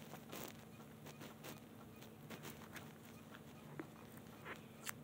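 Near silence: room tone with a faint steady hum and a few soft scattered clicks and rustles.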